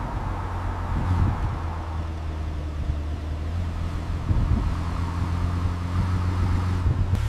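A car engine running steadily at idle, with a low, even hum.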